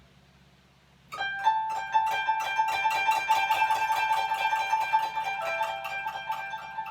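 Koto starting up about a second in, one high note plucked over and over in quick strokes with other strings sounding around it, imitating a locomotive train.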